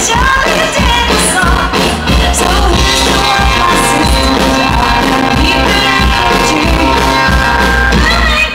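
Live band playing loud amplified music: a woman singing lead into a microphone over electric guitar and drums.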